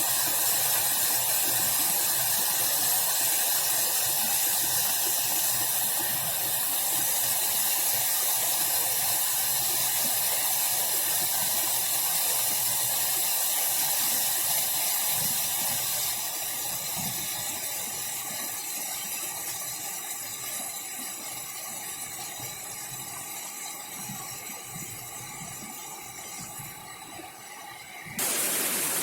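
Steady rushing hiss of flowing water, which fades gradually over the second half and changes abruptly just before the end.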